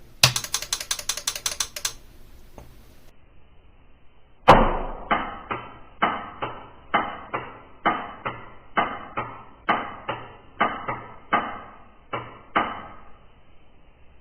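Amplifier relay clicking on and off over and over, about two sharp clicks a second for some eight seconds, each with a short ringing tail. The amplifier is powered through a dim bulb tester and is not starting up cleanly. A quick rattle of clicks comes first, near the start.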